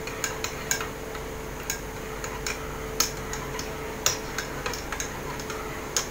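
Light clicks and taps at irregular intervals, like eating utensils against dishes or food containers, over a faint steady hum.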